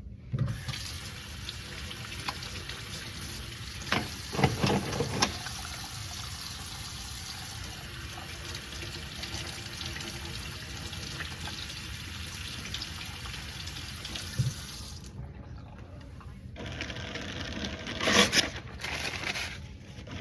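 Sink tap running while hands are washed: a steady rush of water, with a few louder knocks and splashes about four to five seconds in. The water shuts off about fifteen seconds in, and a few loud rustles and knocks follow near the end.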